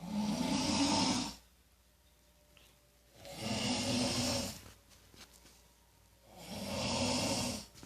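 A man snoring in his sleep: three snores about three seconds apart, each lasting about a second and a half.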